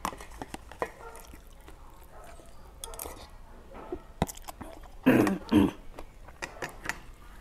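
Close-up eating sounds: a metal spoon clicking and scraping in a plastic tub, then chewing and smacking. About five seconds in, two loud short throat sounds a half-second apart, like clearing the throat.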